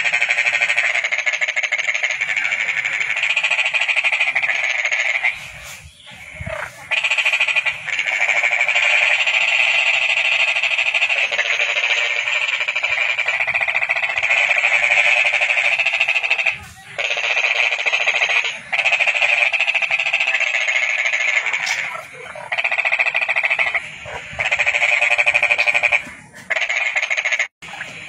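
Toads giving their mating calls: long, continuous, fairly high-pitched trills that run for several seconds at a time, stop briefly, then start again.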